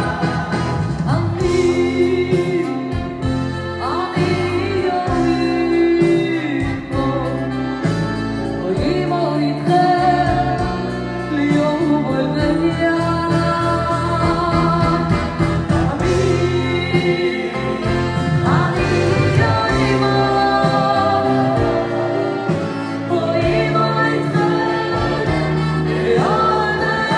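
Male vocalist singing live into a microphone, backed by a band with trumpets.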